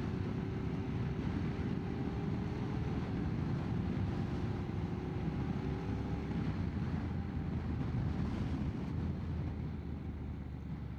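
Motorcycle under way, its engine note running steadily and rising slightly over the first few seconds, under a steady rush of wind and road noise.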